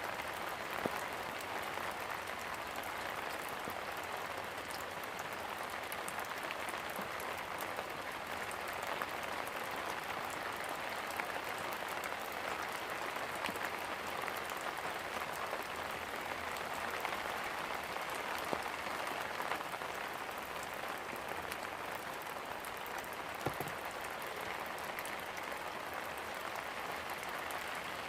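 Steady rain falling: an even hiss with scattered taps of single drops.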